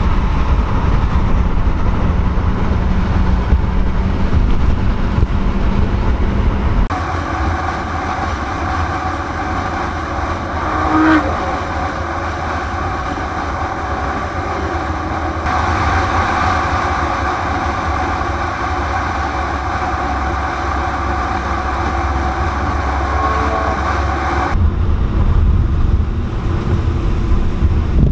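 Steady engine and road noise of a car being driven, heard from inside the car. The sound changes abruptly about a quarter of the way in and again near the end.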